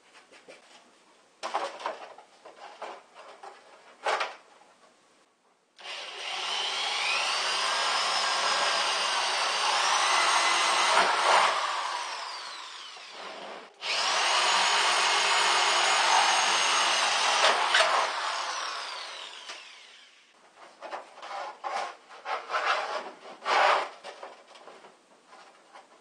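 Electric drill boring into wood in two long runs of about six seconds each, its motor whine rising as it spins up and then holding steady. Scattered knocks and clatter of wood being handled before and after.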